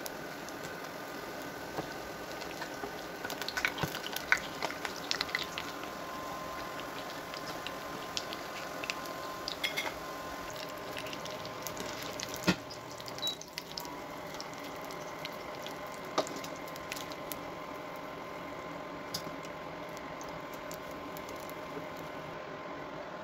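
Spring rolls shallow-frying in oil in a nonstick pan: a steady sizzle and bubbling, with scattered clicks and taps as a fork and spatula turn the rolls, busiest a few seconds in.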